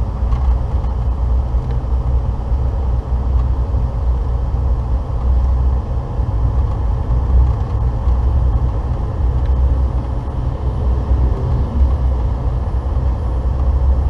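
Steady low rumble of a 2015 Volvo 670 semi truck's diesel engine and tyres on the road, heard from inside the cab while cruising.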